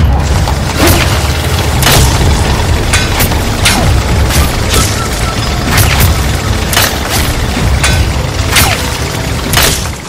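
Edited action-scene sound effects: heavy booming hits land roughly once a second over a constant low rumble, some of them trailed by a falling sweep.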